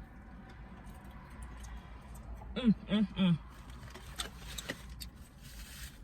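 Three short pitched vocal sounds from a woman, about two and a half seconds in, while she eats fried chicken, followed by faint clicks of eating. A low steady rumble runs underneath.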